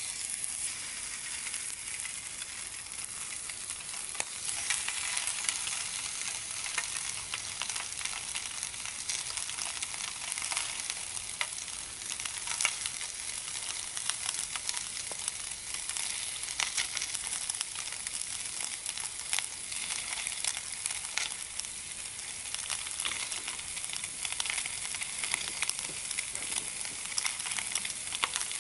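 Bacon rashers sizzling in a hot steel frying pan, a steady frying hiss full of small pops and spits, starting as the bacon goes into the pan and growing a little louder a few seconds in.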